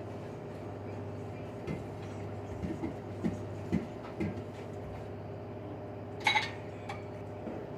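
Grey LG washing machine running its cotton spin cycle: a steady hum. A few soft knocks sound in the middle, and a sharp clatter comes about six seconds in.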